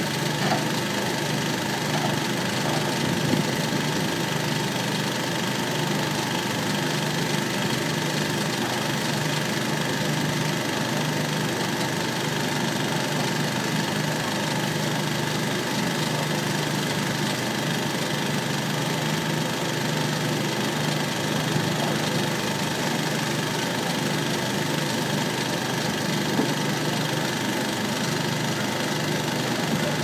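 A heavy engine idling steadily, an unchanging low hum with no revving or breaks.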